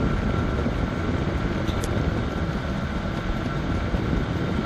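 Chinese 5 kW diesel air heater running at full heat: a steady whirr of its fan and burner with a faint high whine over it. There is one brief tick partway through.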